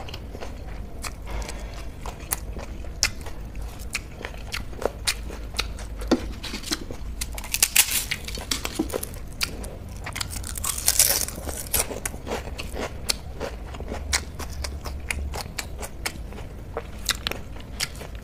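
Close-up eating sounds: chewing and mouth clicks while food is taken up by hand, with two spells of louder crunching, about eight seconds in and again around eleven seconds in, as crisp papad is bitten and chewed.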